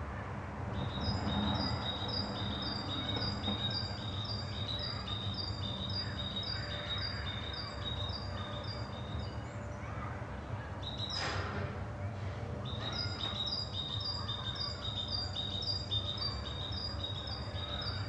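A small songbird sings a long series of repeated high, clear notes, about two a second, in two runs with a pause between them. One short harsh sound comes about eleven seconds in, and a steady low rumble runs underneath.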